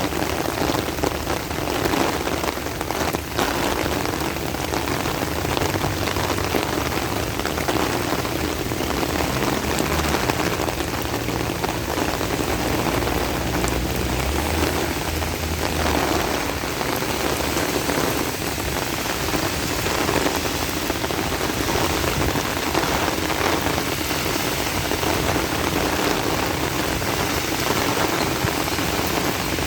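Heavy rain pouring down in a steady, dense hiss. A low rumble swells underneath for several seconds midway.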